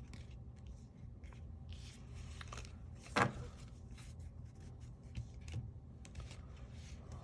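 Faint handling of baseball trading cards being leafed through: soft slides and light clicks, with one sharper click about three seconds in, over a low steady hum.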